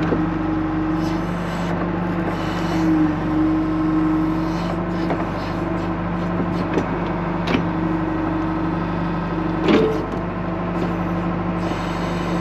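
John Deere 310 backhoe's engine running steadily while the backhoe digs, its pitch wavering slightly under hydraulic load. Two sharp knocks stand out in the second half.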